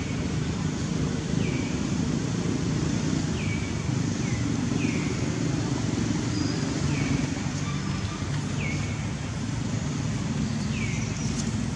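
A bird repeating a short falling chirp about once a second, over a steady low background rumble.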